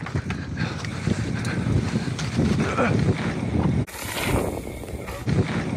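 Mountain bike tyres rolling fast over loose loam and leaf litter on a dirt trail, with the bike rattling and wind buffeting the microphone. About four seconds in the sound changes abruptly to a different take of a bike rolling over leaves.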